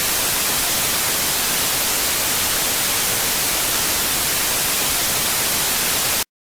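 Loud, steady static hiss like white noise, with no tone or rhythm in it, cutting off suddenly about six seconds in.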